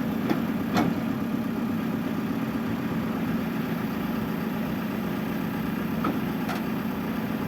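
Truck engine idling steadily, with a few short sharp knocks: two in the first second and two more about six seconds in.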